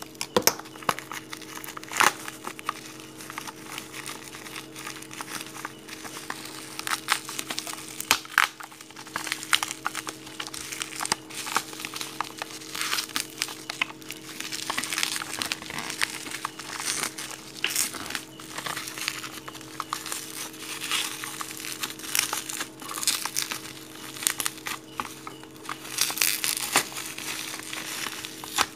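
Bubble wrap being torn open and peeled off by hand: an irregular run of plastic crinkling and crackling with occasional sharp snaps, over a steady low hum.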